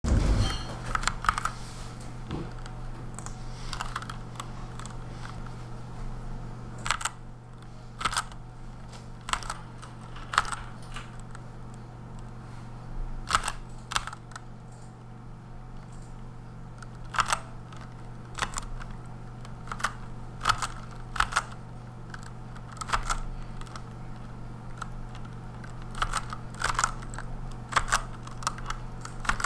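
Fast touch typing on a Redragon Kumara K552 mechanical keyboard with lubed Outemu Red switches: a continuous patter of keystrokes with louder clacks about every second, over a steady low hum.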